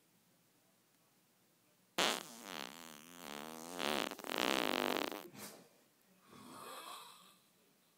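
A long, loud fart from a passed-out sleeper, starting suddenly about two seconds in and fluttering in pitch for about three seconds, followed by a softer breathy sound.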